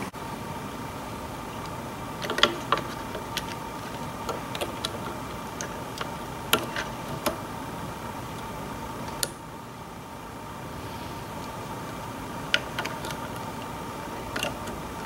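Irregular light clicks and taps as a replacement battery is pressed into its plastic holder in a controller's battery box and its wiring is tucked in. A steady background hum with a faint tone runs underneath.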